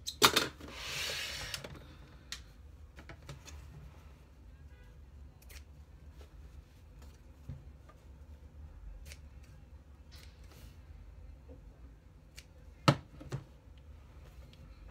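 Scissors snipping loose threads off a pieced fabric block: scattered faint single snips, with a sharper click near the end. Near the start there is a short rustle of fabric being pulled from under the sewing machine's presser foot.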